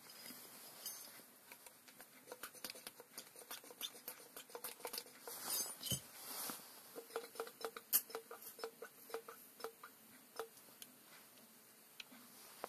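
Light metallic clicks and taps from hands working parts and tools around a steel tractor input shaft on the bench. In the second half the clicks come about twice a second, each with a short ring, and there is a single dull knock about six seconds in.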